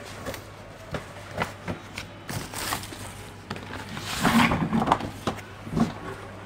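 A sealed cutlery set's packaging being handled and opened by hand: crinkling and tearing plastic wrap with light knocks of cardboard and box. There is a denser burst of rustling about four seconds in.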